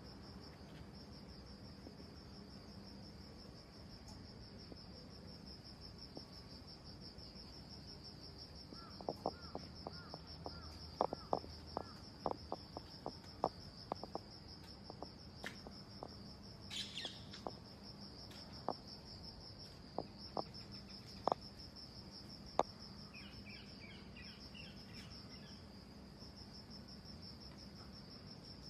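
Faint, steady high trill of insects such as crickets, running without a break. Partway through comes a scattered run of short sharp ticks, about fifteen over some thirteen seconds, and near the end a few faint chirps.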